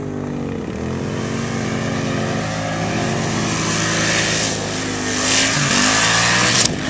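Arctic Cat Wildcat side-by-side at full throttle in the dunes, its engine note dropping and climbing again a few times as the revs change, under a rising hiss of wind and thrown sand. A sharp knock comes near the end.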